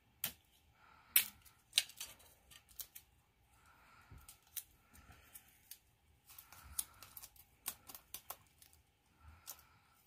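Adhesive tape being handled and pressed onto a cardboard toilet-paper roll: quiet, irregular clicks and crackles.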